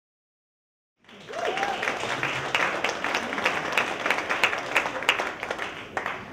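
Silence for about a second, then an audience applauding, many hands clapping at once, dying away near the end.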